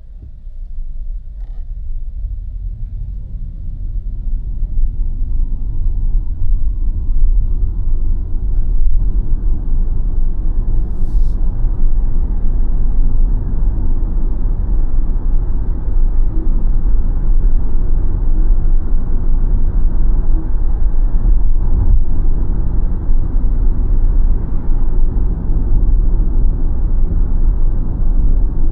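Road and tyre rumble of a BYD Sealion 7 electric SUV on the move, with no engine note. It builds over the first several seconds as the car gathers speed, then holds as a steady low rumble.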